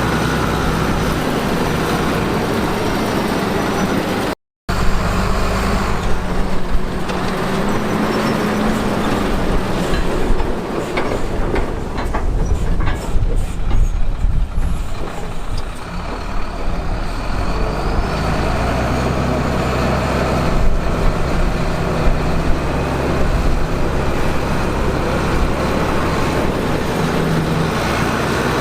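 Heavy diesel earthmoving machinery engines running steadily with a deep rumble, with a run of sharp knocks and clatter about ten to sixteen seconds in. The sound cuts out completely for a moment about four seconds in.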